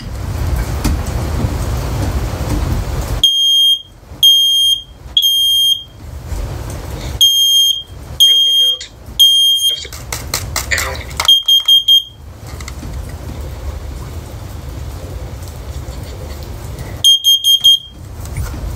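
First Alert 10-year smoke and carbon monoxide alarm sounding its test: two rounds of three long, shrill beeps, the temporal-three smoke pattern, then two rounds of four quick beeps, the temporal-four carbon monoxide pattern.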